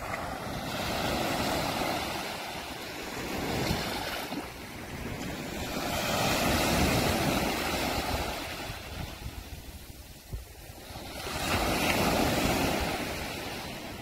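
Small sea waves breaking and washing up the beach: three swells of surf, each rising and falling away over a few seconds, about five seconds apart.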